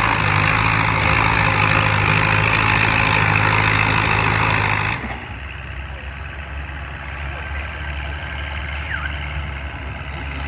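Antique farm tractor engine running hard and steady, hitched to the pull sled. About halfway through the sound cuts off abruptly to a quieter, low, steady engine hum.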